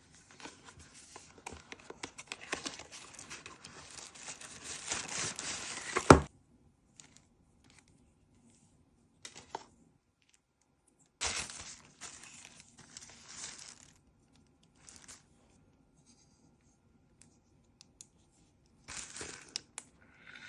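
Product packaging being torn open and crinkled in irregular spells with silent pauses, with one sharp knock about six seconds in.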